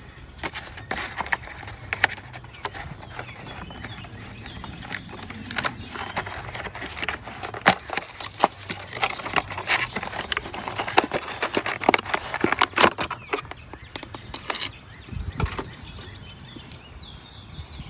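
Crackling and rustling of a cardboard box and a clear plastic blister pack being handled and opened by hand, with irregular sharp clicks of stiff plastic.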